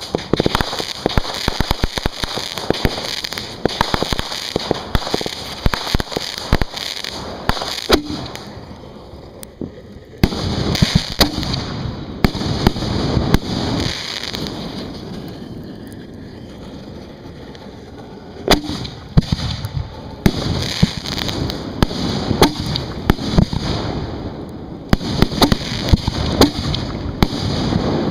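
Aerial firework shells going off close overhead, heard from beside the launch racks: a dense run of sharp bangs and crackling. It thins out twice, a little under a third of the way in and again around the middle, with a loud bang before each busy stretch starts up again, and it is busiest near the end.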